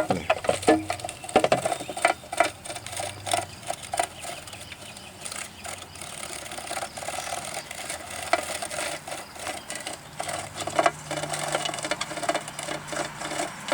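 Periodical (17-year) cicadas fluttering and scrabbling at close range: a dry, irregular clicking and rattling. A low steady hum joins about ten seconds in.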